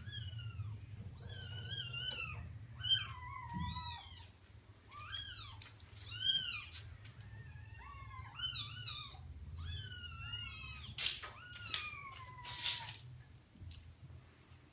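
Cat mewing: a long run of short, high-pitched mews that rise and fall in pitch, with one longer call gliding down near the end, over a steady low hum.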